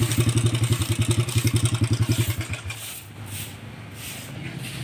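A small motorcycle engine running with an even, rapid putter. About two and a half seconds in, the beats slow and die away, leaving only faint background hiss.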